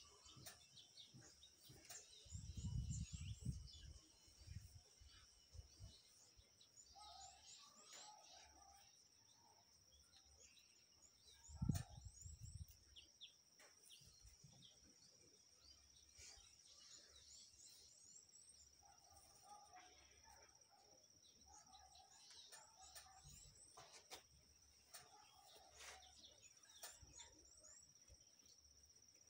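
Faint outdoor ambience: many short high bird chirps over a steady high-pitched whine, with two low bumps about three seconds and twelve seconds in.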